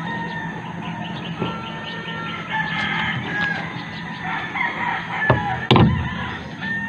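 Roosters crowing repeatedly in the background. A loud knock, the loudest sound, comes about five and a half seconds in.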